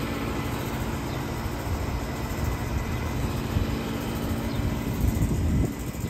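Trane air conditioner running, a steady hum from the compressor and condenser fan with a rumbling whoosh of moving air. It gets quieter near the end.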